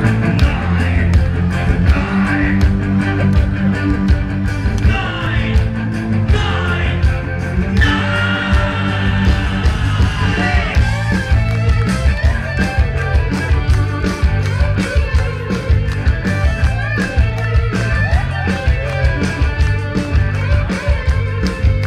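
Live rock band playing: electric guitar, bass and drums through the PA, loud and bass-heavy, heard from among the audience.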